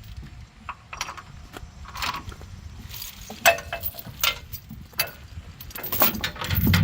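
Metal tie-down chain and binder hardware clinking and clicking irregularly, with ratchet-like clicks while a load is chained down. A low steady engine hum comes in near the end.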